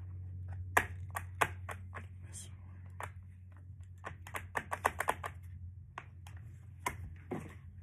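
Hard plastic toy race-track pieces clicking and knocking together as they are handled and fitted, a scatter of sharp clicks with a quick run of them about four to five seconds in.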